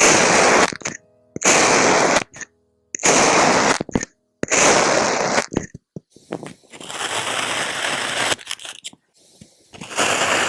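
Kinetic sand crunching and crackling in strokes about a second long, with short silent gaps between them. About four strokes come in the first six seconds, then a longer, softer rustling stretch, then another crunch near the end.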